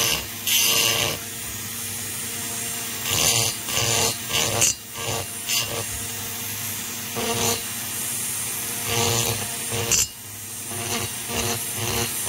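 Small high-speed rotary tool running with a steady hum while its bit grinds the edge of a port inside a two-stroke chainsaw cylinder, chamfering the port edge with light pressure. The grinding comes in short, irregular bursts every second or two as the bit touches the metal and lifts off.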